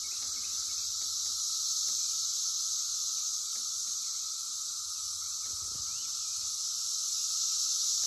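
A chorus of cicadas buzzing: a continuous, high-pitched drone that holds steady throughout.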